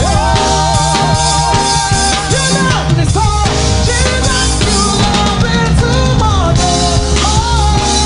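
Live gospel praise-break music: a full band with drum kit and bass under a lead melody of long held notes that waver and slide.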